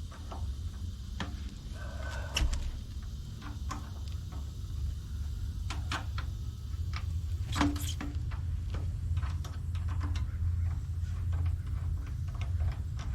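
Scattered small clicks and knocks of parts and hand tools being handled while a fuel line is assembled, with two sharper knocks about two and a half and eight seconds in, over a steady low hum.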